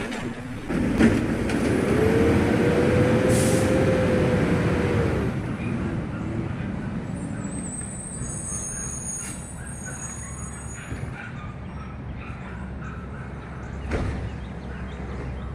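Automated side-loader garbage truck pulling away from the curb: a clack about a second in, then the diesel engine revving up with a steady whine and a short air hiss. Its sound then fades to a low rumble as it drives off.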